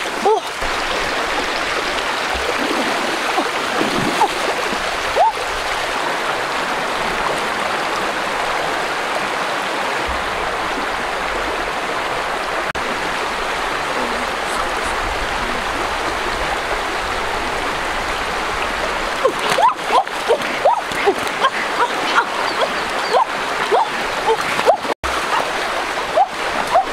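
Shallow river running over rocks: a steady wash of flowing water. In the last several seconds a quick string of splashes breaks in as feet wade through the water.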